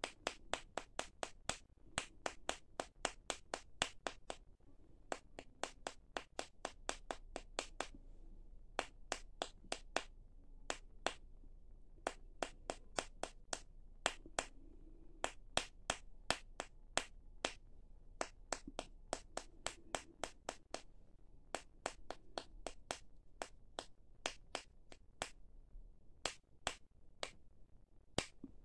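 Graphite powder puffer bottle squeezed over and over, each squeeze a short sharp puff, about three a second in runs with brief pauses, as dry graphite lubricant is blown into ball bearings.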